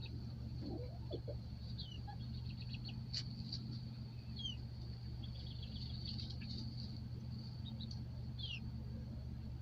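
Baby chicks peeping: short high peeps, a few of them sliding downward, over a steady low hum.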